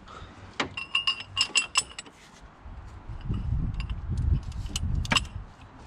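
Ringing metal clinks as a socket and long breaker bar are fitted onto a transmission mount bolt, then a low rumble of strain on the bar with a sharp click about five seconds in. The bolt is seized and does not break free.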